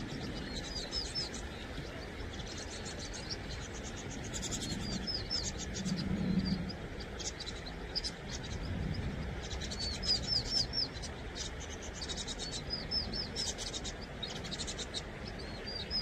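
Vinous-throated parrotbills calling: repeated groups of three or four short, high, slurred notes, mixed with a fast rattling chatter. A brief low rumble comes about six seconds in.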